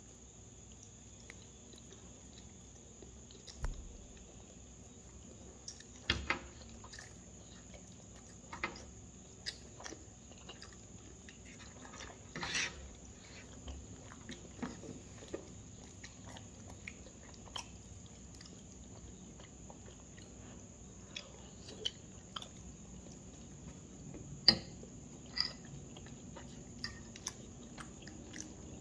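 A person eating: quiet chewing with scattered light clicks of a metal fork against a plate, the sharpest click about 24 seconds in.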